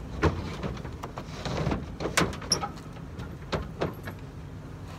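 Irregular knocks and clunks from a riding mower being shifted and handled in a pickup truck's bed, with footfalls on the bed, over a steady low hum.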